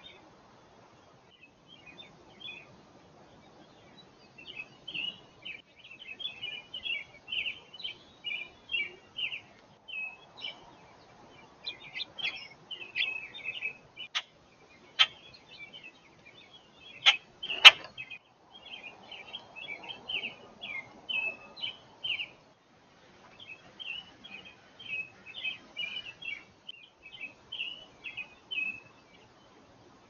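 Small songbirds chirping in quick runs of short, high chirps with brief pauses between runs. A few sharp clicks come a little past the middle; the last is the loudest sound.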